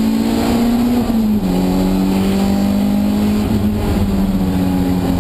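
A BMW 318is (E30) rally car's 1.8-litre four-cylinder engine, heard from inside the cabin, pulling hard at high revs. The pitch climbs, drops at an upshift about a second and a half in, climbs again, then dips briefly before holding steady.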